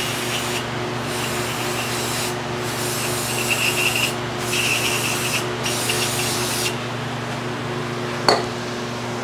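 Aerosol can of brake cleaner sprayed in about five hissing bursts of a second or so each, over a steady shop hum. A single sharp click near the end.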